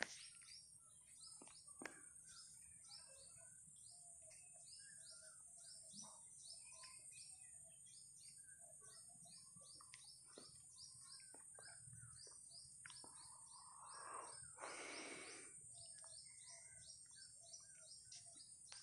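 Near silence: a steady faint high hiss with faint short chirps repeating a few times a second.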